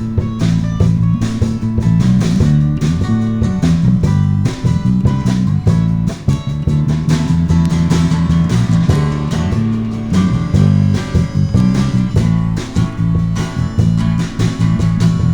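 A rock band playing an instrumental passage between vocal lines: strummed guitar over a bass guitar line and a drum kit.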